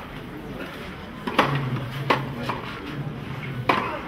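Tennis ball struck by rackets in a clay-court rally: a sharp pop about a second and a half in and another near the end, with a lighter knock between.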